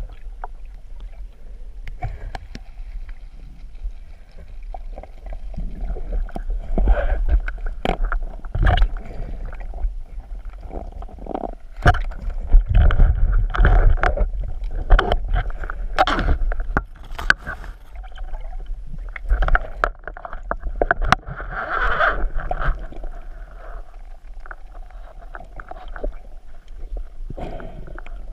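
Water sloshing and gurgling around the camera, with a low rumble and many irregular knocks and clicks.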